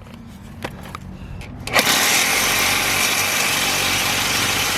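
A power saw cutting into a steel exhaust pipe. Its motor runs lightly at first, then from about two seconds in the blade bites into the pipe with a loud, steady cutting noise.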